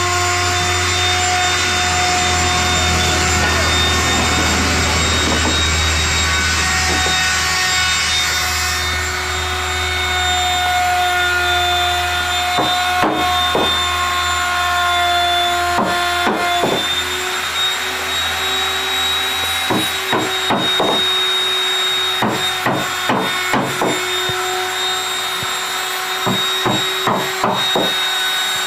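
A woodworking power tool or machine running steadily with a steady whine and hum. Around halfway, and again through the last third, come clusters of sharp knocks, like tapping on wood.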